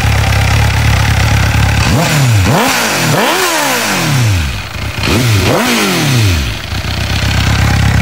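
MV Agusta Brutale 750 motorcycle with an Arrow aftermarket exhaust, stationary, idling steadily and then blipped hard on the throttle several times in quick succession, each rev rising and dropping back. It settles back to idle near the end.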